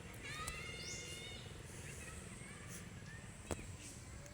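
Baby monkey giving one high-pitched squeal about a second long, its pitch rising slightly. A single sharp click follows near the end.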